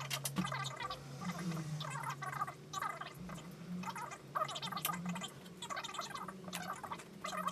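Animal chattering: quick runs of short, wavering calls, broken by brief pauses, over a steady low hum.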